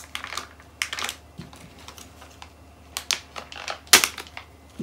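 Plastic ink-cartridge packaging being handled and unwrapped: scattered light clicks and short crinkles of a plastic bag, the sharpest click about four seconds in.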